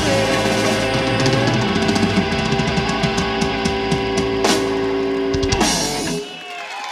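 Live blues-rock band of electric lead guitar, bass guitar and drum kit playing the closing flourish of a song: a held guitar note over rolling drums and cymbal crashes. The music stops about six seconds in.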